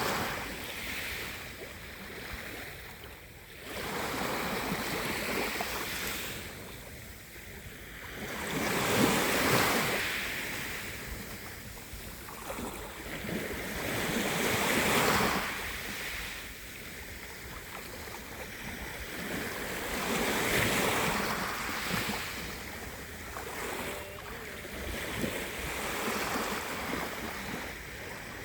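Sea waves breaking and washing onto the shore, the surf swelling and ebbing about every five or six seconds.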